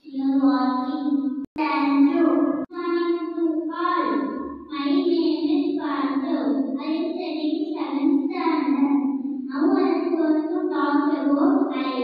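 A young boy singing into a handheld microphone, a melody of long held notes. The voice cuts out briefly twice, about a second and a half and two and a half seconds in.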